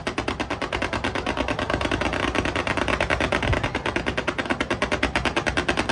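Fireworks going off in a fast, even run of sharp cracks, about a dozen a second, that starts suddenly.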